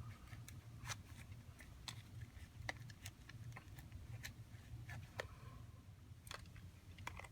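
Faint, irregular clicks and light scraping from a business card being worked under a smartphone's display to cut through its adhesive and lift the screen.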